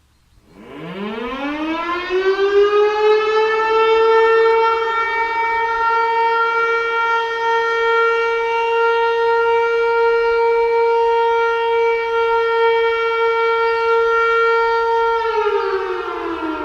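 Landert MSL-6 civil-defence siren sounding the test signal. It winds up in pitch over about four seconds to a steady single tone, holds it, and starts winding down near the end.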